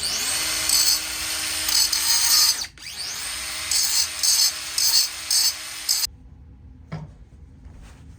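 Handheld electric power tool started twice, each time rising quickly to speed, running about two and a half and three seconds, then cutting off. The sound swells in louder harsh pulses as the tool works against the car's metal bodywork.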